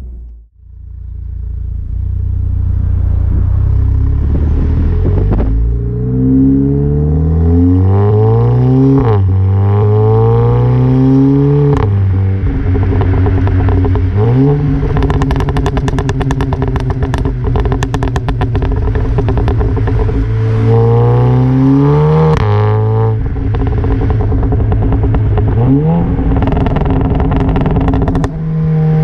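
VW Golf 7 GTI's turbocharged 2.0-litre four-cylinder exhaust, heard at the rear bumper, pulling hard several times with rising pitch. Between the pulls come long stretches of rapid crackling and popping on overrun: the overrun burble (Schubblubbern) in the rival tuner's software, which he finds applied far too long and too loud.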